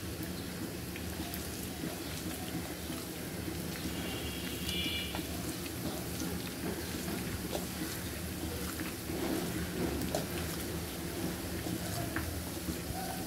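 Sliced onions and dried red chillies frying in hot oil, sizzling steadily as they crisp into beresta.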